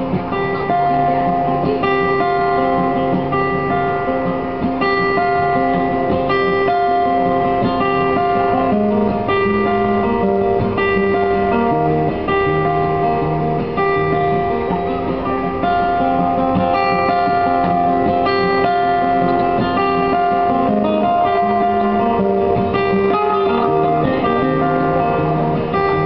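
Amplified acoustic guitar played live, a steady run of ringing notes and chords that carries on without a break.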